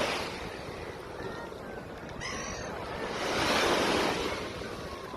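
Sea surf washing onto the beach, one wave swelling to its loudest a little past the middle and falling away, with wind rumbling on the microphone.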